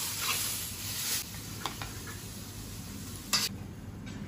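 Stir-fried zucchini shreds being tipped and ladled from a hot wok onto a plate: a faint sizzle that fades after about a second, then a few clicks of the metal ladle against wok and plate, the loudest about three seconds in.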